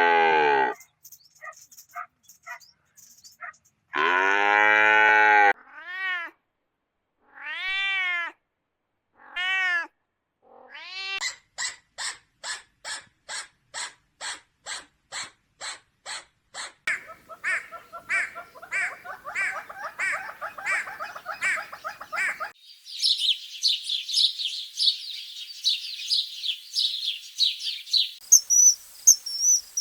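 A run of different animal calls one after another: a few drawn-out, mewing cries in the first ten seconds, then a fast series of short chirps, a trill, and high insect chirping near the end.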